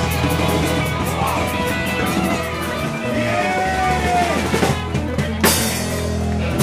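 Live rock band playing: drum kit with a steady cymbal beat, guitar and bass. There is a single sharp hit about five and a half seconds in.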